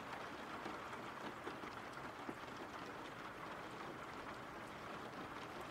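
Steady rain falling, a faint even hiss with a light patter of drops.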